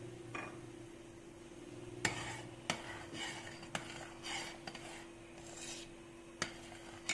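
A long-handled metal spoon stirring thick red lentil soup in a stainless steel pot, with sharp clinks against the pot and wet swishing between them, starting about two seconds in.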